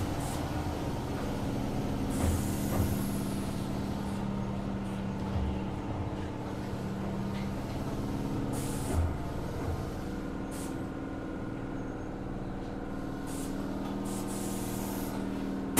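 Keihan 2600 series electric train standing still: a steady low hum from its onboard equipment, with short hisses of air from the brakes every few seconds.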